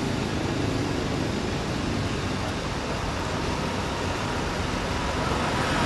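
Steady hum of street traffic, an even noise with no distinct events in it.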